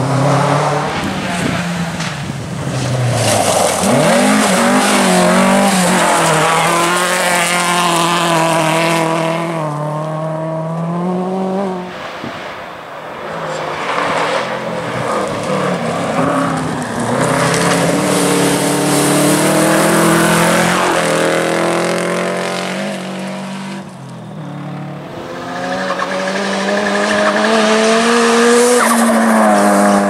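Rally cars, among them a Subaru Impreza, driven flat out past the camera one after another on a gravel stage. The engines rev up and drop back through gear changes, and the tyres scrabble over loose gravel. There are about three passes, with a lull around 12 and again around 24 seconds in.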